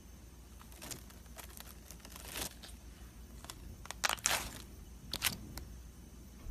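Slime being squished and pulled against a racket's strings, giving a few short spells of crackling and popping, the loudest about four seconds in.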